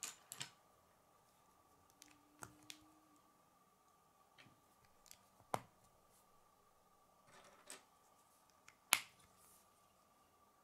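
Plastic K'nex pieces clicking as they are handled and snapped together by hand: scattered sharp clicks at irregular intervals, the loudest about five and a half and nine seconds in.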